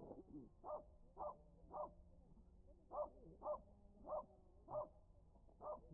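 A small dog barking repeatedly in short, high yaps, about two a second with a brief pause partway through.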